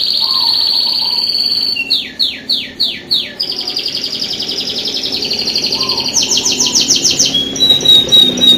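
Domestic canary singing a continuous song of rapid trills: a fast rolling trill, then five downward-sweeping notes about two seconds in, a long steady trill, a higher and faster trill near six seconds in, and a few short clear whistled notes at the end.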